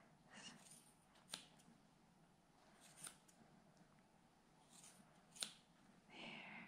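Faint, scattered snips of small grooming scissors cutting an angora rabbit's wool, about five over several seconds. The sharpest come just over a second in and about five and a half seconds in.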